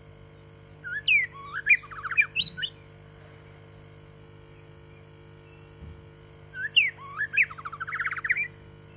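White-rumped shama singing two phrases about five seconds apart, each a run of rising and falling whistles that ends in a quick trill.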